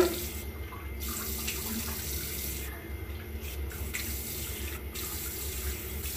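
Water running from a tap into a bathroom sink while a face is rinsed with handfuls of water, a steady splashing flow that thins briefly a few times.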